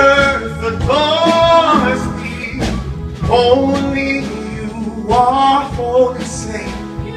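Live gospel music: a male lead singer and a group of backing singers sing with instrumental accompaniment, in sung phrases of a second or two with short gaps between them.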